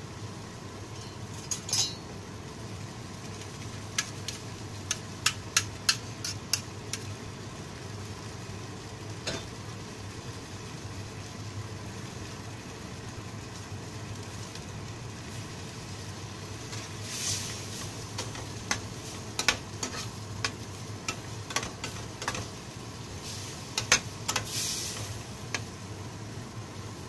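Spatula stirring and scraping a steel frying pan of mushroom-and-onion gravy simmering with pork broth, in short clusters of clicks and scrapes against the metal. A steady low hum runs underneath.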